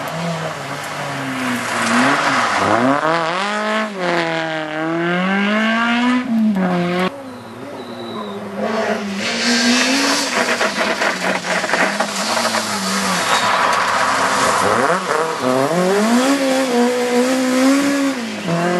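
Two rally cars, one after the other, sliding through on a gravel stage. Each engine revs up and drops back several times as it comes through, with the hiss of gravel spraying from the tyres. The first car's sound cuts off abruptly about seven seconds in, and the second car is heard from about nine seconds in.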